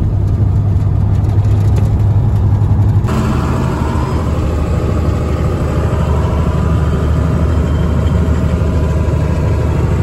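Semi truck's diesel engine running, heard from the cab. About three seconds in, the sound changes abruptly to louder, rougher machinery noise beside a grain cart's auger: engines and moving machinery running.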